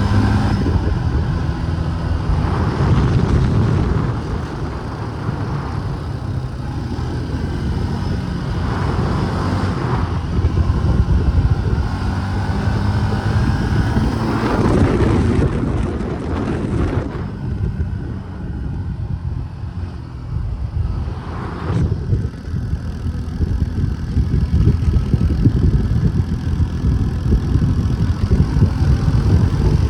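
Four-wheeler (ATV) engine running under way, its pitch and loudness rising and falling with the throttle, with a steady rush of wind and riding noise.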